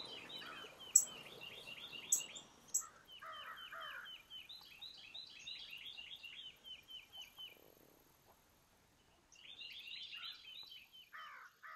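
Songbirds chirping faintly in rapid runs of short repeated notes, with a few sharp clicks in the first three seconds and a brief pause about eight seconds in.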